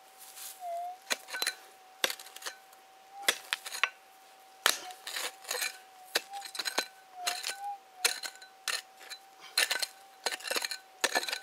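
Prospecting pick chopping into stony ground around a tree root: sharp, irregular clinks of the steel head striking rocks and soil, one or two a second with some in quick pairs. A metal detector's steady thin tone hums underneath, dipping slightly in pitch a few times.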